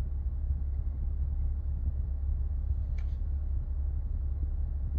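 Steady low rumble inside a car cabin, with one short click about three seconds in.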